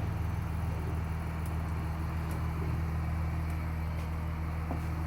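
The bus's Cummins ISC inline-six diesel idles steadily at low idle, with a faint click about four and a half seconds in.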